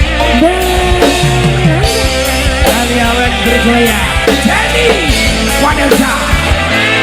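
Loud live band music: a wavering melodic lead line over steady bass and a regular drum beat.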